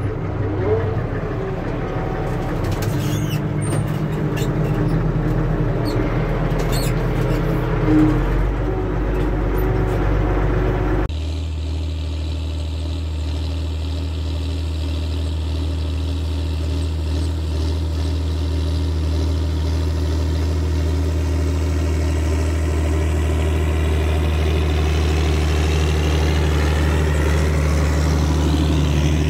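Renault farm tractor's engine running steadily under load while ploughing, with a few knocks and rattles in the first part. About a third of the way in the sound changes abruptly to an even, unbroken engine drone.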